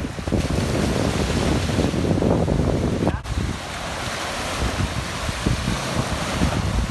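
Small waves breaking and washing up a sandy beach, with wind rumbling on the microphone. The sound drops out for a moment about three seconds in.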